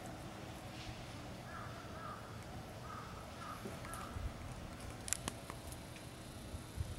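An animal calling: a few short, wavering calls in two groups, with a couple of sharp clicks about five seconds in.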